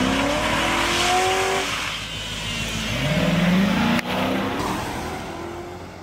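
2006 Ford Crown Victoria's 4.6-litre V8 revving hard under full acceleration. Its pitch climbs, drops once as the transmission shifts, then climbs again, and the sound changes abruptly about two-thirds of the way through. The engine pulls strongly and the transmission shifts smoothly.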